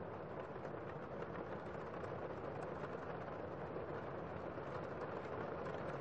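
Heavy rain heard from indoors as a steady, even rush of noise.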